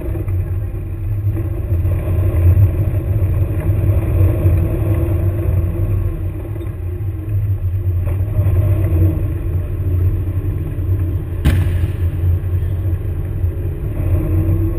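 Engine of an airsoft combat vehicle running with a steady low rumble as it drives, heard from on board. One sharp crack comes about eleven and a half seconds in.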